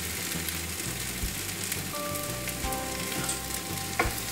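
Masala gravy sizzling steadily in a kadai, with water just added to it. A few faint steady tones come in about halfway, and a click sounds near the end.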